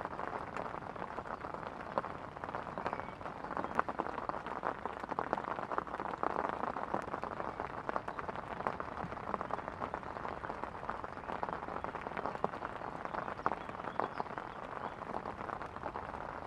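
Steady rain falling on a river's surface: a dense, even hiss of countless small drop impacts.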